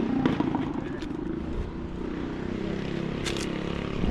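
An engine running steadily, with a couple of sharp clicks about three seconds in.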